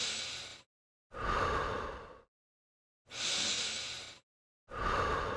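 A person breathing deliberately and audibly, alternating breaths in and out. Each breath lasts about a second, with total silence between them: four breaths in all, the first already under way as the sound begins and the last trailing off just after it ends.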